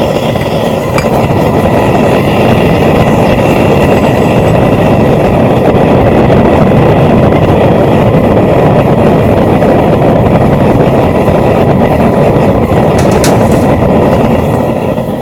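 Homemade propane forge burner running at about 5 psi: a loud, steady rushing noise of the gas flame, which drops off sharply near the end.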